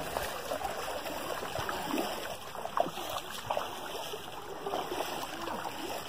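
Shallow stream water splashing and trickling around bare feet as people wade along a sandy streambed, with small irregular sloshes from the steps.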